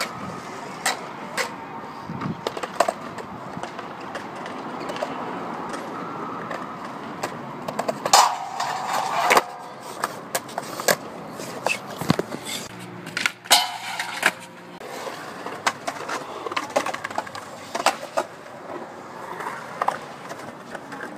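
Skateboard wheels rolling over concrete, broken by many sharp clacks of the board hitting the ground. The loudest clusters of clacks come about eight seconds and thirteen seconds in.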